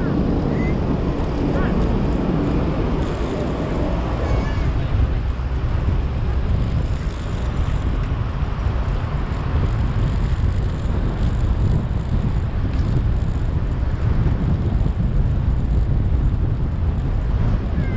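Steady road and traffic noise from a vehicle driving through city streets, with a low rumble of wind on the microphone.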